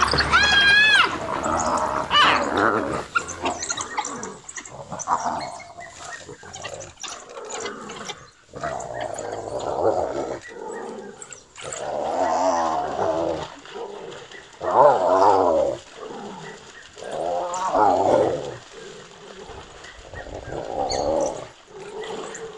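Spotted hyenas and African wild dogs calling during a clash: loud, wavering growling yells of about a second each come several times, with high-pitched calls near the start.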